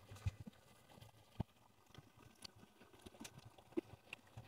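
Shallow stream running over rocks, heard faintly as a soft water hiss with scattered small splashing ticks, the sharpest about a second and a half in.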